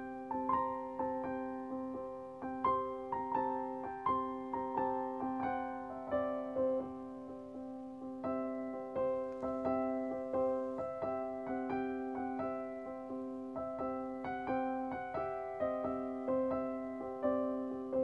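Background music: a gentle piano piece, its notes struck one after another and fading over steady lower notes.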